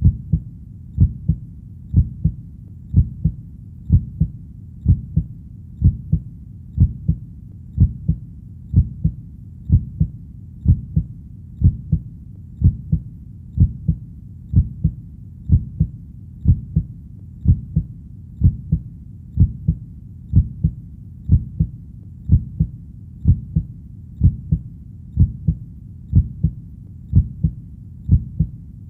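Heartbeat sound: a steady, slow lub-dub, each beat a pair of low, dull thumps, repeating about once a second.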